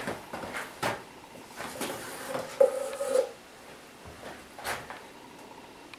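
Wooden knocks and scraping as the steam box is opened and a hot, steamed rib strip is drawn out and handled, with a short squeak about two and a half seconds in.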